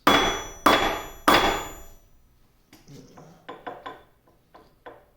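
Three hard hammer blows on a steel shaft in a lathe headstock, about two-thirds of a second apart, each leaving a bright metallic ring; the shaft is stuck and not budging. A few lighter clicks and knocks follow.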